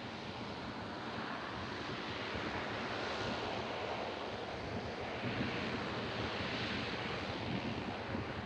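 Short C-23 Sherpa twin-turboprop transport at takeoff power, a steady rushing engine and propeller noise that swells a little past the middle, mixed with wind on the microphone.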